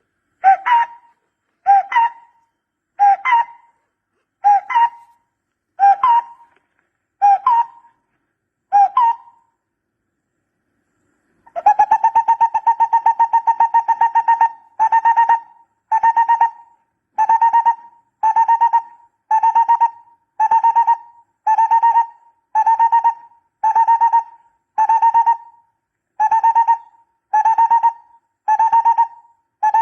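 Barbet calls played as a lure: short rising notes repeated about every second and a half, a pause of about two seconds, then a rapid trill and a fast run of pulsed notes repeating a little more than once a second.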